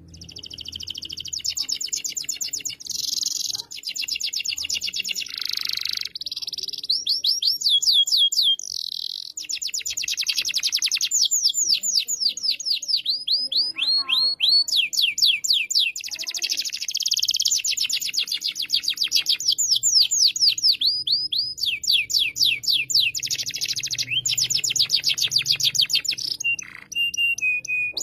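Domestic canary singing a long, continuous song, vigorous in full song. It runs through fast trills and runs of rapid downward-sweeping notes, with short breaks between phrases.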